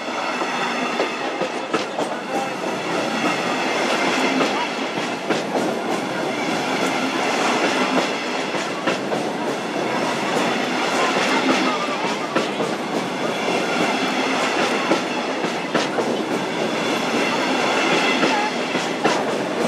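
Double-deck regional passenger train passing close by at low speed: a steady rolling rumble with irregular clicks of its wheels over the track, growing louder toward the end.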